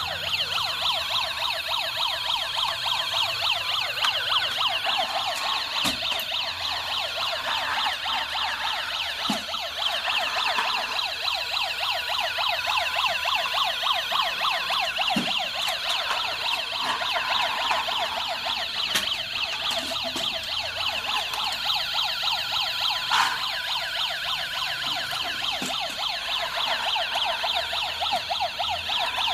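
Electronic siren sound from a toy remote-control emergency vehicle: a thin, fast warbling wail with no low end that runs on steadily, with a few faint clicks.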